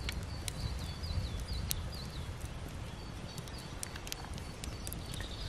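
Wood campfire crackling with scattered sharp pops under a hanging kettle, over a steady low rumble. A small bird chirps in short repeated falling notes during the first two seconds.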